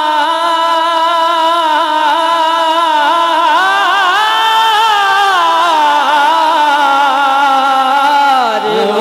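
A man singing a naat in Urdu devotional style, holding one long ornamented note that wavers, rises a little around the middle and falls away near the end.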